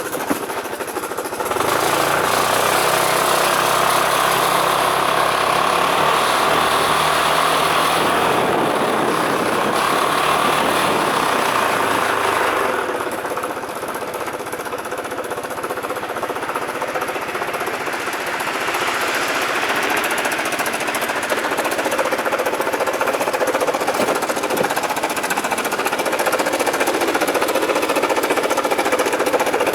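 Yamaha Racing King 180 Fi scooter engine running with a rapid mechanical clatter that rises with revs. Revs go up about a second and a half in, drop back around halfway, and climb again later. The noise comes from a broken cam chain tensioner bar.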